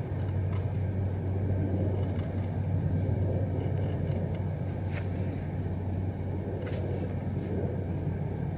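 Bark River Bravo Crusader knife shaving thin curls off a stick for a feather stick, heard as a few faint short scrapes, over a steady low rumble.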